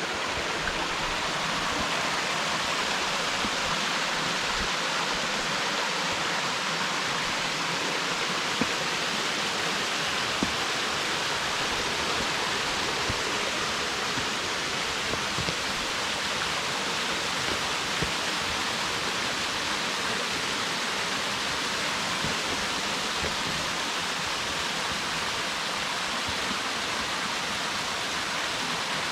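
Waterfall crashing steadily: a loud, even rush of falling water.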